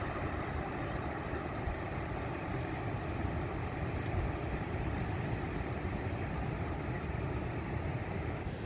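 Steady rush of surf breaking on a sandy beach, mixed with wind buffeting the microphone.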